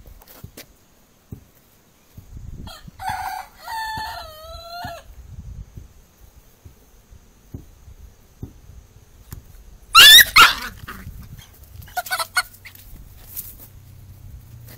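A chicken and a puppy sparring. A run of short calls rising and falling in pitch comes about three seconds in. About ten seconds in there is a very loud, piercing cry, then a few shorter cries, all over low scuffling on dirt.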